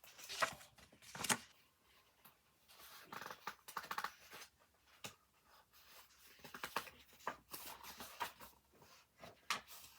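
Irregular paper rustling and scraping as a picture book is handled and its pages turned, with the loudest rustles near the start and about a second in.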